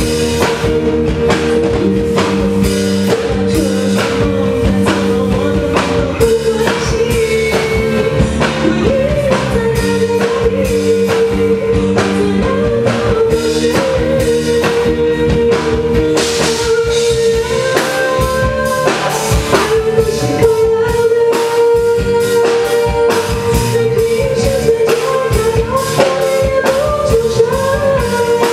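A rock song played live by a piano-rock trio: keyboard, bass guitar and drum kit keeping a steady beat, with singing.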